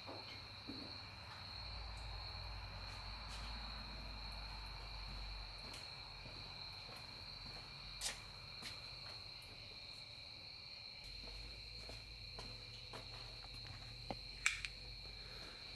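Faint background noise with a steady high-pitched whine throughout, and a few light clicks about halfway through and again near the end.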